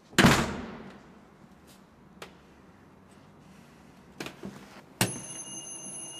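A door slams shut, with a short echo dying away. After a few faint knocks, about five seconds in, a steady high ringing tone starts suddenly and keeps going.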